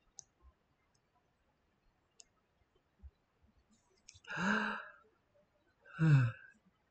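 A person's voice making two short wordless sounds, about a second and a half apart, the second falling in pitch. A few faint clicks come before them.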